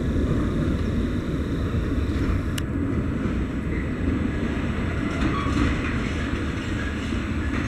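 Diesel shunting locomotive passing slowly on the tracks: a steady low rumble of its engine and its wheels rolling on the rails.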